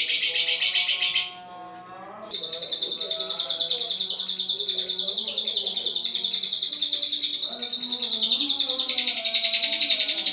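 Lovebird singing a long, rapid chattering trill of high chirps, breaking off for about a second near the start and then running on. Fainter lower pitched sounds lie underneath.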